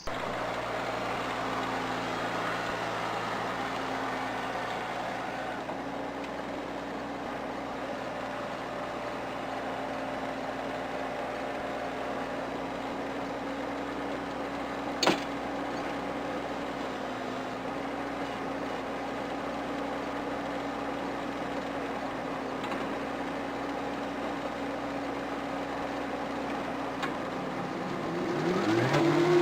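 Mahindra eMax 22 compact tractor's diesel engine running steadily at low speed, then revving up near the end. A single sharp click sounds about halfway through.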